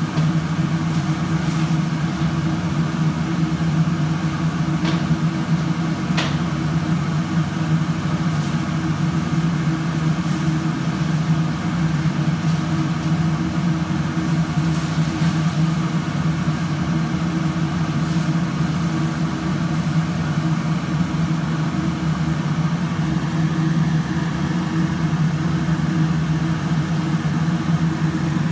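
Fish steaks shallow-frying in oil in a nonstick pan, a steady sizzle with an occasional spit, over a constant low mechanical hum.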